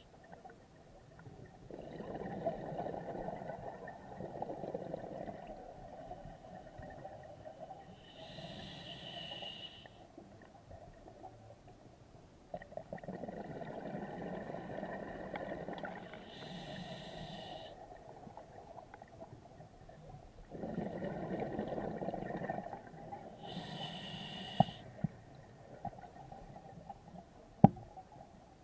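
Scuba diver breathing through an open-circuit regulator underwater: three breaths, each a long rush of exhaled bubbles followed by a shorter hissing inhalation, about every seven to eight seconds. A few sharp clicks near the end, one of them loud.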